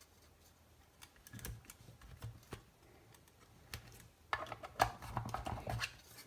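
Small plastic clicks and taps of the halves of a small plastic project case being handled and pressed together, which do not quite snap shut. The clicks are scattered at first and come thick and fast in the second half.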